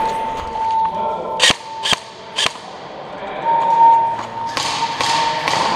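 Airsoft electric rifle firing three single shots about half a second apart, each a sharp crack, over a steady high electronic tone that swells and fades.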